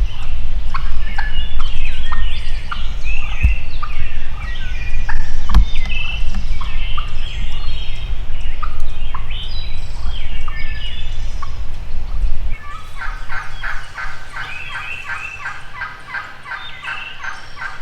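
Wild turkeys gobbling and calling, with wind rumbling on the microphone for roughly the first twelve seconds. Near the end comes a long run of quick repeated turkey calls, about three or four a second.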